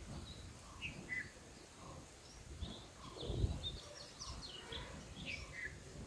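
Birds chirping at a bulbul nest: scattered short, high chirps, many of them quick falling notes, coming thicker in the second half. A low bump or rumble about halfway through is briefly the loudest sound.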